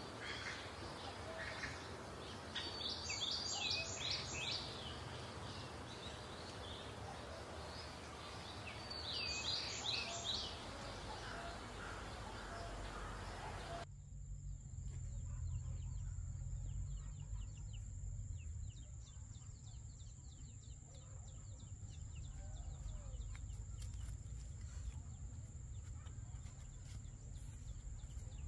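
Outdoor ambience of background hiss with birds chirping in two short bursts, a few seconds in and again about ten seconds in. About halfway it cuts suddenly to a quieter bed with a steady high-pitched whine and a low rumble.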